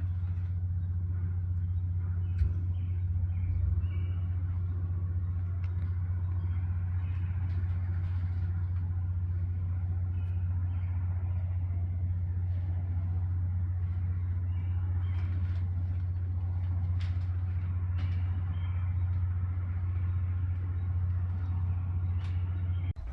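A steady low engine hum, with faint short high chirps and a few light clicks now and then.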